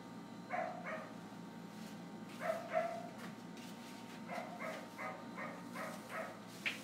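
A small dog yapping off and on in short, high barks: a pair, another pair, then a quick run of about eight and one more near the end.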